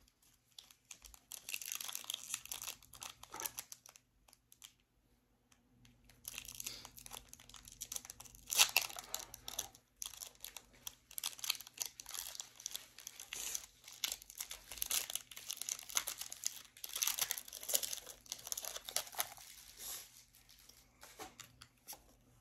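Foil booster-pack wrapper of Pokémon trading cards being torn open and crinkled by hand, in irregular crackling bursts. There is a pause about four seconds in.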